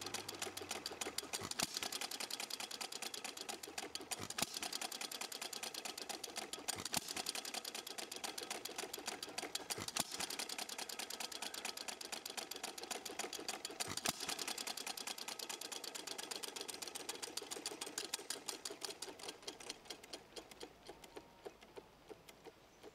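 Small Stuart Little Major hit-and-miss engine running: a fast, even clatter of clicks with a louder firing stroke every few seconds as it fires and coasts. Near the end the clicks slow and fade as the engine winds down.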